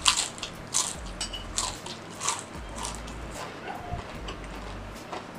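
Ghost pepper potato chip bitten with a sharp crunch, then chewed in a run of crisp, irregular crunches that thin out after about three seconds.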